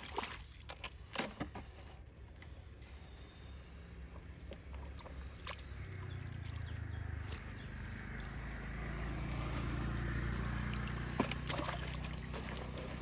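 A bird repeating a short rising chirp about once a second, over a low rumble that builds from about four seconds in and eases off near the end. A few sharp knocks come in the first couple of seconds.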